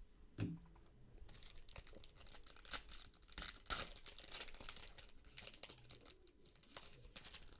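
Foil wrapper of a football trading-card pack being torn open and crinkled as the cards are pulled out: faint, irregular tearing and crinkling, busiest around the middle.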